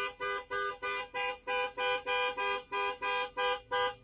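A two-tone horn honking in short, even blasts, about three a second.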